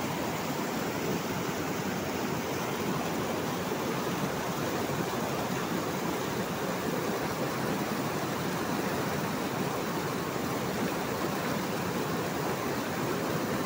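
Dirty, foamy backwash water pouring over the edges of a rapid sand filter's concrete wash-water troughs: a steady rush of falling, splashing water. The filter bed is being cleaned by backwashing.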